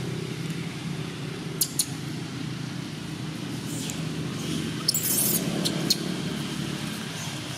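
Dry leaf litter crackling and rustling as macaques shift and walk off, a few sharp clicks and one short rustle about five seconds in, over a steady low hum.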